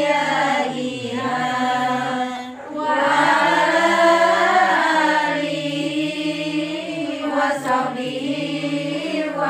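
A group of women chanting together in unison, an Islamic devotional recitation sung in a slow, drawn-out melody, with a brief pause for breath about two and a half seconds in.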